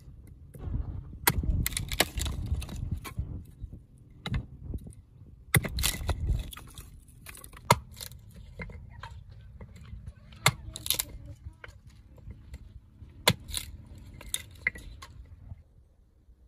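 Hatchet chopping dry firewood logs into pieces: sharp, irregular blows of the steel head into wood, with cracking and splintering between them. The chopping stops about a second before the end.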